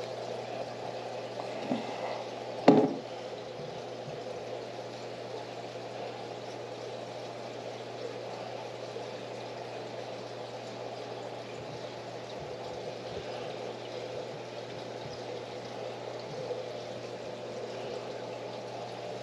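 Saltwater reef aquarium's running water: a steady trickling, bubbling splash of the tank's circulation over a constant low pump hum. A sharp knock about three seconds in is the loudest moment.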